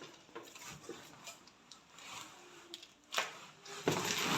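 Handling noises from unboxing packaging: scattered faint clicks and rustles, a sharp louder rustle about three seconds in, then a louder scraping rustle starting shortly before the end.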